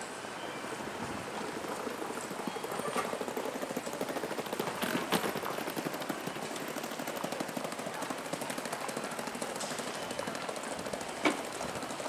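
Outdoor station-plaza ambience with a dense, rapid crackling patter and a couple of sharper clicks, about five seconds in and again near the end.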